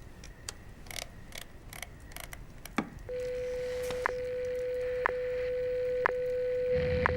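Shortwave radio time-signal broadcast: faint crackling clicks at first, then, about three seconds in, a steady tone starts with a sharp tick every second.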